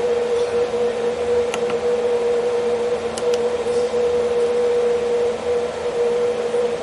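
Steady machine hum and whir with a constant mid-pitched tone. A few faint clicks come from buttons on the drive's keypad being pressed.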